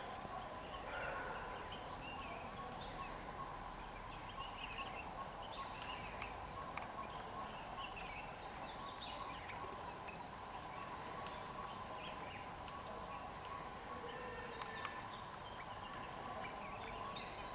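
Birds chirping in short, scattered calls, over a steady faint hum.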